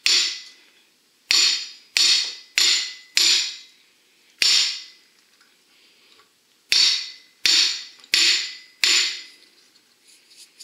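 Hammer tapping on the steel yoke of an F-350 axle shaft, driving a new U-joint bearing cap into the yoke. About ten sharp metallic strikes with a short ring after each: six, then a pause of about two seconds, then four more in quick succession.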